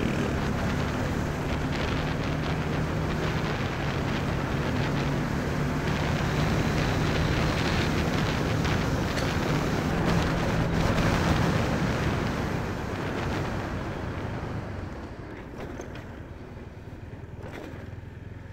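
Bajaj Dominar 400's single-cylinder engine running hard at a steady pitch, with heavy wind rush, as the motorcycle overtakes a truck. From about 13 seconds in, the engine and wind noise fade as the bike eases off and slows.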